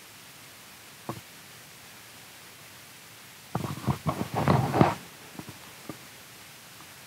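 Camera handling noise: a single click about a second in, then a cluster of knocks and rustling lasting about a second and a half near the middle, and a couple of small clicks after it, over faint room hiss.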